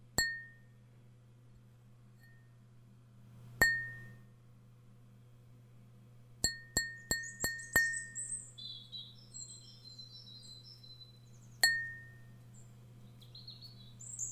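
Light glass clinks, each with a short bright ring: single clinks a few seconds apart, then a quick run of five, then one more. Bird chirps come in behind the later clinks, over a faint steady low hum.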